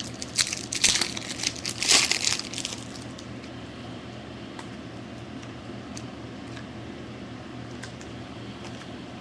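Trading card pack wrapper crinkling and tearing as it is opened, for the first three seconds or so. After that it is quieter, with a few faint clicks from the cards being handled.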